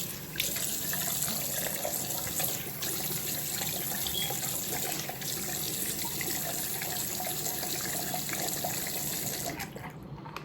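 Water running steadily from a tap; it starts just after the beginning and stops shortly before the end.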